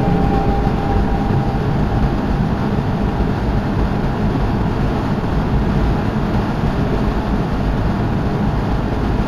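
Steady road and wind noise of a car driving at highway speed, a constant low rumble with an even rushing hiss.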